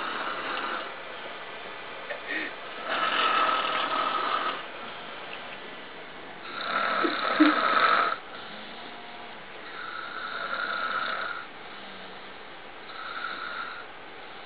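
A man snoring loudly in his sleep, about five snores at a steady pace of roughly one every three seconds; the loudest comes about seven seconds in.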